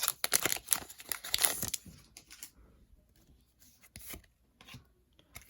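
A Pokémon booster pack's foil wrapper crinkling and tearing open for about the first two seconds, followed by faint rustles and light ticks of the cards being handled.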